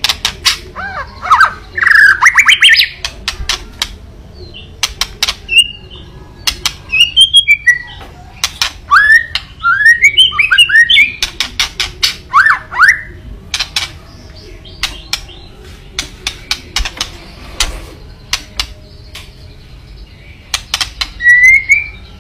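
White-rumped shama (murai batu) giving its 'kretekan' call: rapid clusters of dry cracking clicks mixed with short rising whistled phrases, in repeated bouts. It is an agitated, aggressive call, played as a lure to provoke rival shamas into singing.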